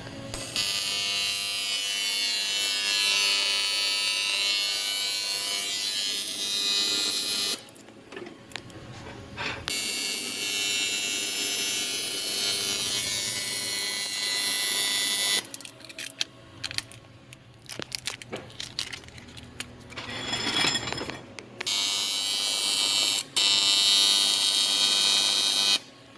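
Electric arc welding: a loud, steady buzzing crackle in three long runs of about five to seven seconds each, with short pauses between them as the welder stops and restarts the bead.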